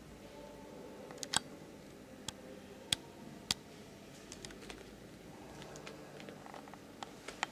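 Quiet room tone with a faint hum, broken by about a dozen irregular sharp clicks and taps, the loudest a little over a second in.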